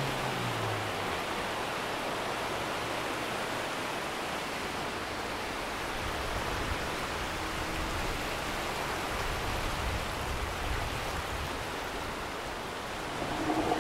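Steady rushing of surf and moving water at a beach. A low hum fades out in the first second, and a short pitched sound comes in near the end.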